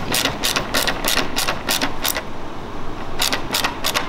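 Ratcheting screwdriver clicking as a bumper screw is driven back in. The clicks come at about four to five a second, stop briefly a little past halfway, then start again.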